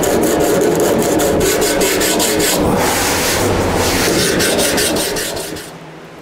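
Sanding block with 80-grit paper rubbed back and forth over body filler on a car fender, a steady rasping of quick repeated strokes that fades away near the end.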